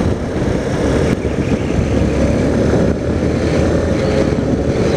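Honda CRF230L's single-cylinder four-stroke engine running steadily while the bike is ridden, heard from inside the rider's helmet along with wind rumble.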